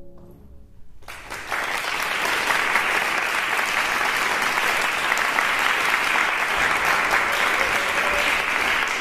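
The last chord of a grand piano dies away, then audience applause starts about a second in and continues steadily.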